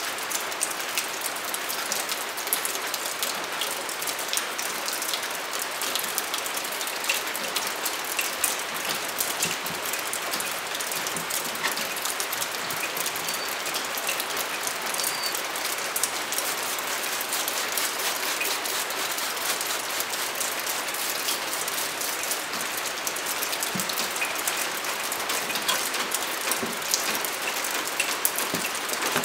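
Rain pattering steadily, an even hiss full of fine scattered ticks.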